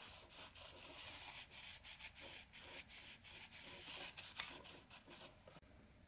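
Faint, irregular rubbing and scraping of a paper towel pushed with a thin tool across the engine crankcase, wiping wet gasket maker from around the main seal bore. It stops about a second before the end.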